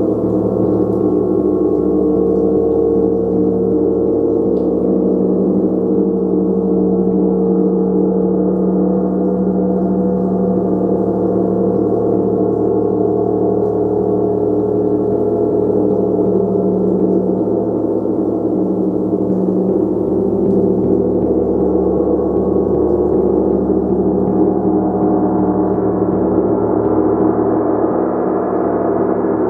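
A gong played continuously, a sustained wash of many overlapping ringing tones at a steady loudness, with no single strike standing out. The upper tones brighten a little near the end.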